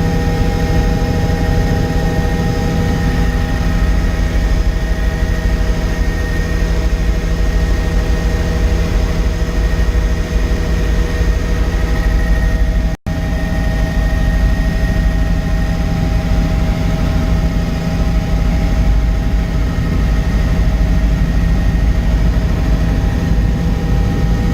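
Helicopter in flight: steady, loud engine and rotor noise with a deep rumble and a constant high turbine whine, broken for an instant about halfway through.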